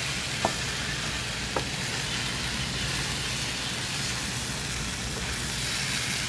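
Curry chicken and basmati rice sizzling in oil in a skillet while a spatula stirs it, the rice being fried with the spices before the water goes in. There are a couple of short clicks, about half a second and a second and a half in.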